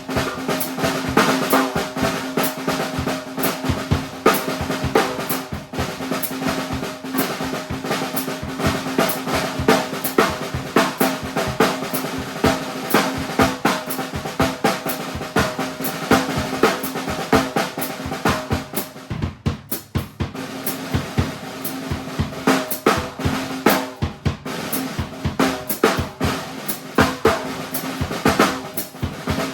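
Drum kit played in a fast improvised groove: dense snare and bass drum strokes with a steady ring beneath them, easing off briefly about two-thirds of the way through before picking up again.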